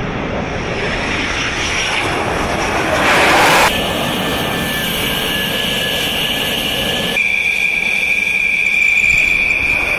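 Jet aircraft engines running on a carrier flight deck: a loud, steady rush whose character changes abruptly about two, three-and-a-half and seven seconds in. A high steady whine runs through the last three seconds.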